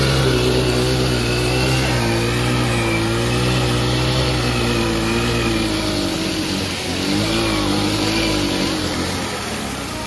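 Scooter engine held at high revs while its rear wheel spins in water and mud in a burnout, spraying it behind. The pitch wavers up and down with the throttle, and the sound eases off over the last few seconds.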